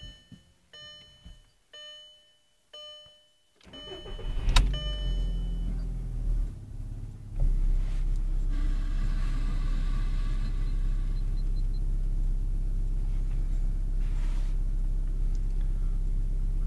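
A car's electronic chime beeps about once a second, then the engine is cranked and catches about four and a half seconds in. It settles into a steady idle.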